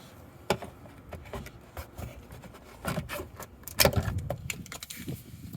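Plastic wheel-arch liner clips being squeezed and popped out with a plier-style trim clip removal tool: irregular sharp clicks and knocks with plastic scraping between them, the loudest knock about four seconds in.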